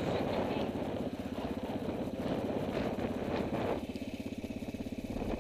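Quad (ATV) engine idling with a steady, fast pulse, a rushing noise over it dropping away near the end.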